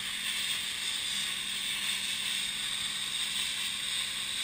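Pressure-washer lance spraying a high-pressure water jet onto the finned core of a ship's cooler, making a steady hiss with a faint low hum underneath.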